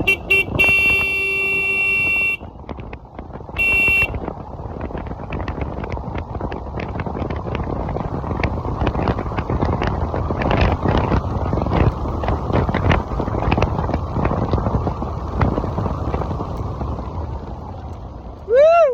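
Wind rushing over the microphone of a moving electric motorcycle, swelling in the middle and easing off toward the end, with scattered clicks. A horn sounds at the start for about two seconds and again briefly about four seconds in, and a short chirp rises and falls in pitch near the end.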